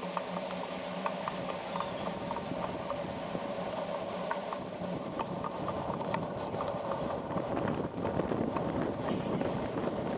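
Bicycle riding along a paved city bike lane: steady rolling noise with a regular light ticking, about three or four ticks a second. Wind on the microphone grows stronger near the end.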